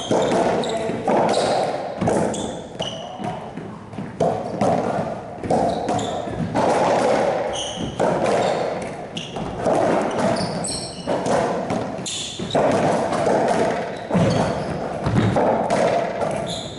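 A racquetball rally: the ball struck by racquets and hitting the court walls again and again, each hit ringing in the enclosed court, with short high squeaks of shoes on the court floor.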